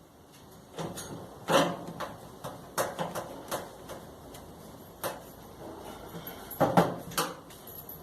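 Irregular knocks and clunks of a tumble dryer's panels and parts being handled during repair work, about eight in all, the loudest about a second and a half in and again near the end.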